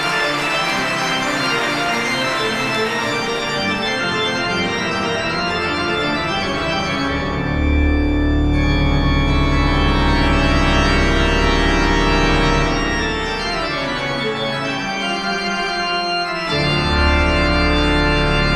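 Live rock band's keyboard intro: an organ sound holding sustained chords. About seven seconds in, a deep bass joins and the music gets louder.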